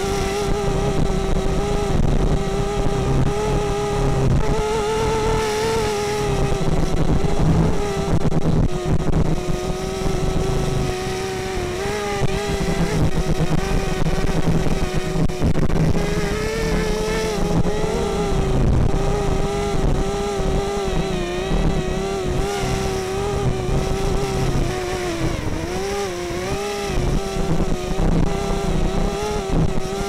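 A small multicopter's electric motors and propellers whining steadily in flight, the pitch wobbling up and down as the motors hold it against strong wind, with wind rumbling on the onboard camera's microphone.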